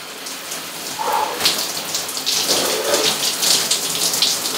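Overhead shower spraying water that splashes on a person's head and body and onto the tiled floor: a steady, dense hiss that flickers unevenly as the stream is broken up.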